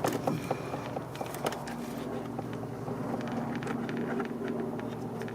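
Small clicks and scrapes of long-nose pliers twisting and working a plastic part loose in an engine bay, over a steady low hum.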